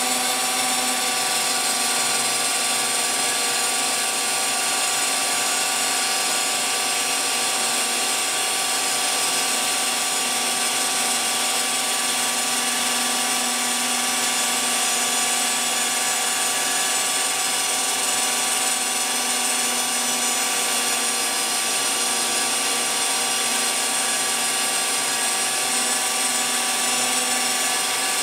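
Phlatprinter CNC mill's spindle spinning its end mill through a fibreglass sheet. It makes a steady, unbroken mechanical whine with a few constant tones over a high hiss.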